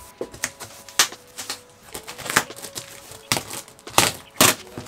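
Unboxing handling noise from a cardboard box, foam packing and a plastic bag: irregular sharp knocks and crinkles, the loudest just after a second in and again about four seconds in.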